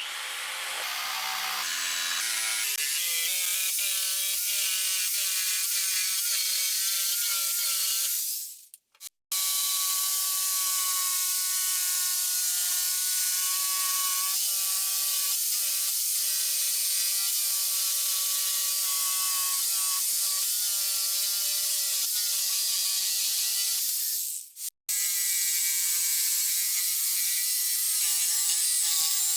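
Electric power tool's motor spinning up over the first couple of seconds, then running steadily with a high whine. It stops briefly twice.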